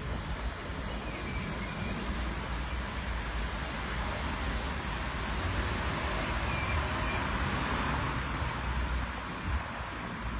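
Outdoor road traffic noise, a steady hiss with a low rumble that swells as a vehicle passes about six seconds in.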